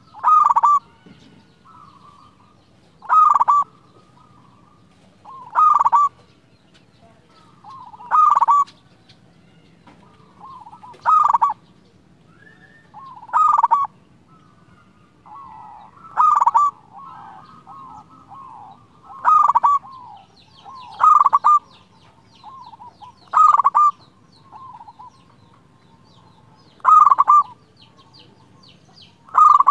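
Zebra dove (perkutut) singing: a short, loud cooing phrase repeated about every two to three seconds, with softer cooing notes between the phrases.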